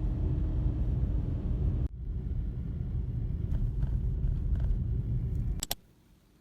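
Low, steady rumble of a moving vehicle. It breaks off for an instant about two seconds in, then stops abruptly with a couple of clicks near the end.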